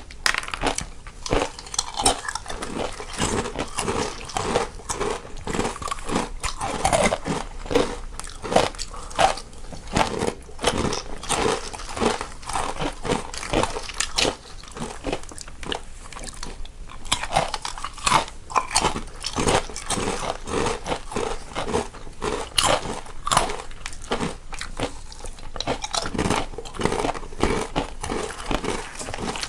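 Two people crunching and chewing crunchy snacks, one eater in the left channel and one in the right, a dense, irregular run of crunches.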